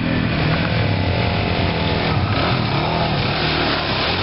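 Suzuki 400 dual-sport motorcycle engine revving up and down as the bike rides through a mud pit.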